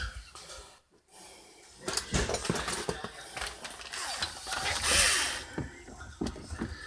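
Clicks, knocks and rustling of plastic refrigerator panels and screws being handled and fitted, with a brief louder rush of noise about five seconds in.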